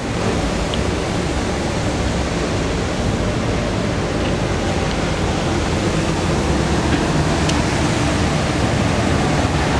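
Steady, loud rushing noise with no distinct events.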